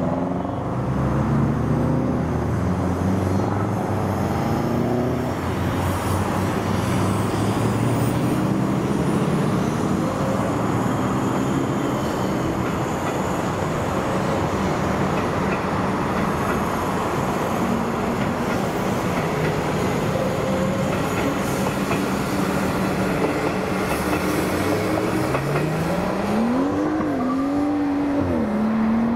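Suburban electric multiple-unit train running past on the line, a steady rumble of wheels on rail with motor whine whose pitch glides up and down. Near the end a whining tone rises and wavers.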